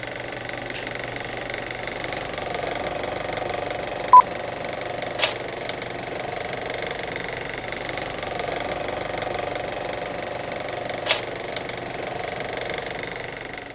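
Film projector running with a steady rapid clatter and whir, with a short high blip about four seconds in and two sharp pops later, fading out near the end.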